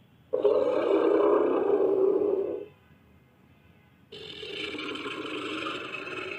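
Brontosaurus sound-effect calls: two long low roars with a gap between them. The first is loud and lasts about two seconds. The second, quieter one begins about four seconds in and slowly fades.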